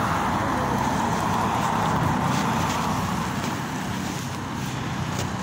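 Steady traffic noise with a low engine hum.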